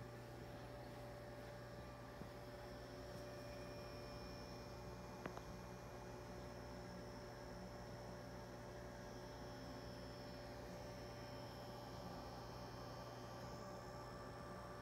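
Steady low electrical hum with a few faint steady tones above it, from the reef aquarium's running equipment. There is one faint click about five seconds in.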